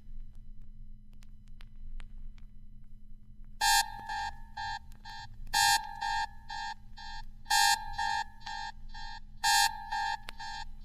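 Vinyl record between tracks: a low steady hum with scattered surface clicks, then, about three and a half seconds in, a repeating electronic beeping pattern, a louder beep about every two seconds with shorter beeps in between, like a telephone or buzzer tone opening the next song.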